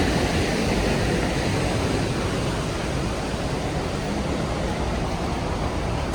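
Steady roar of the Rhine Falls: a continuous, even rush of falling water with a strong low rumble.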